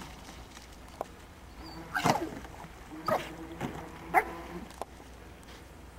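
A swimming dog giving about four short, sharp yelps and whines, roughly one a second from about two seconds in, with a held whining tone between them.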